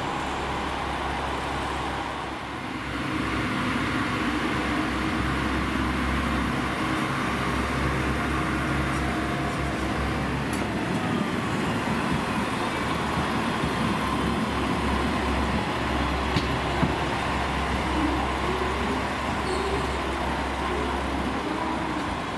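Red KiHa 40-series diesel railcar's engine running steadily with a deep rumble, growing louder about three seconds in.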